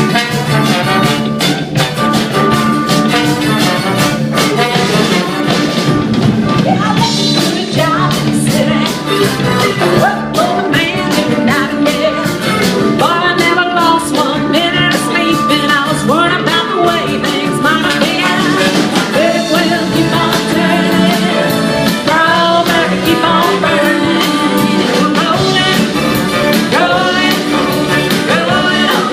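Live band playing an upbeat rock number at full volume, with no let-up in the playing.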